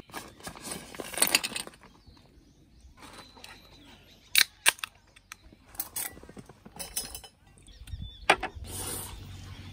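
Ice cubes and cans clinking and rattling as a hand digs through a cooler full of ice. A few sharp knocks follow, twice close together about halfway through and once near the end, as an aluminium beer can is set down on a slatted wooden table.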